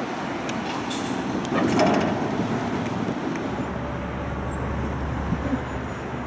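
Steady rush of wind and water aboard a river cruise boat under way, with its engine running; a low engine drone grows stronger about three and a half seconds in.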